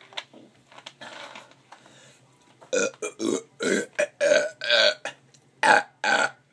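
A person burping loudly, about eight short burps in quick succession from about three seconds in, during a burp contest.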